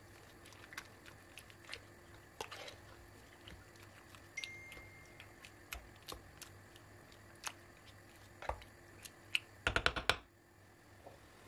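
Wooden spoon stirring tangerine pieces and sugar in an enamelled pot: scattered soft clicks and taps of the spoon against the fruit and the pot, with a quick run of louder taps about ten seconds in.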